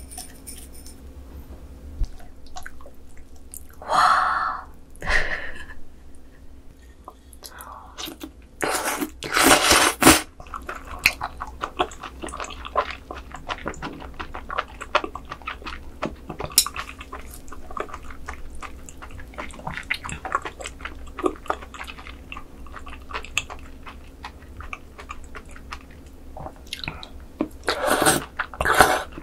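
Close-miked eating of raw squid sashimi noodles in a thick sea cucumber intestine sauce. Several loud wet slurps, the longest around nine to ten seconds in and again near the end, are separated by steady chewing full of small sticky clicks.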